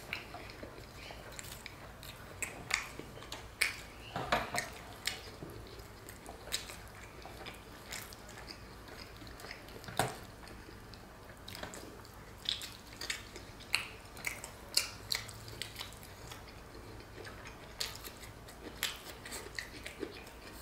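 A person eating by hand close to the microphone: chewing with scattered sharp clicks and crackles as flatbread is torn and food is scooped from a stainless-steel tray.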